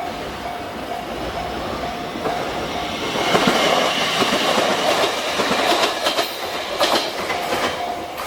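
JR Kyushu 817 series electric train passing over a level crossing. It grows loud about three seconds in, with wheels clattering and clicking over the rail joints. The crossing's warning bell rings about twice a second; the train drowns it out, and it is heard again near the end.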